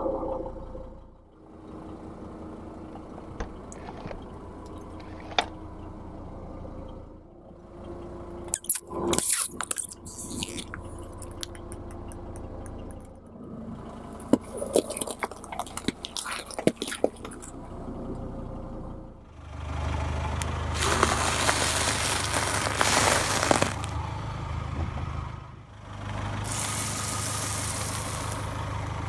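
A car running slowly while its tyres roll over and crush objects on a road. There are clusters of sharp cracks and snaps, then two longer, louder stretches of crunching under the tyre, with the engine hum underneath.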